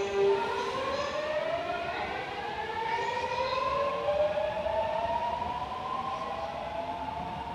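Seoul Line 8 subway train pulling out of the station. A steady hum stops about half a second in, then the traction-motor inverter whine rises in several tones together, climbing slowly in pitch as the train accelerates away.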